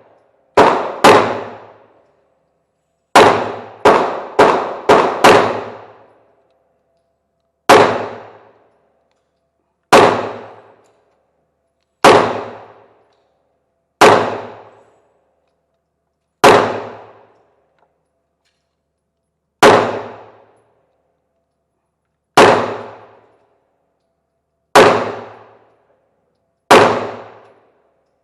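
9mm pistol fired about sixteen times: two quick shots, a rapid string of five, then single shots every two to three seconds, each crack trailing off in an echo.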